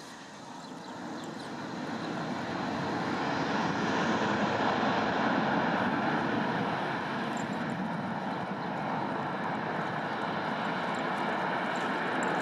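An Airbus A319 airliner's jet engines, the roar swelling over the first few seconds and then holding steady.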